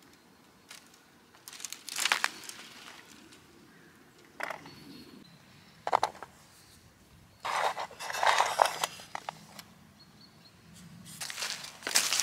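Bursts of rustling and crackling from the bare twigs of a wild rose bush as rose hips are picked, with a short sharp knock about six seconds in. Near the end come footsteps crunching over fallen leaves and grass.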